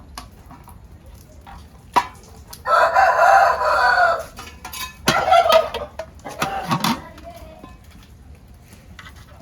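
Rooster crowing: one long held call about three seconds in, then shorter calls a couple of seconds later. A sharp click comes just before the first call.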